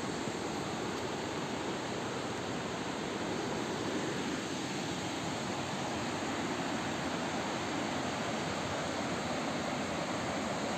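Ludu waterfall's water pouring and crashing, a steady rushing noise that stays even throughout.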